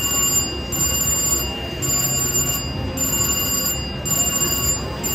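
Three-reel stepper slot machine on repeated spins: its reels spin while the machine plays a looping, bell-like electronic ringing, over a steady low casino background.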